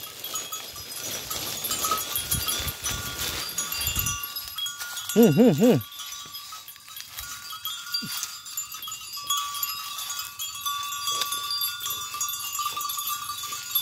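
A goat bleats once, about five seconds in: a short, wavering call. Around it, a faint steady high-pitched tone and a soft rustling noise, loudest in the first few seconds.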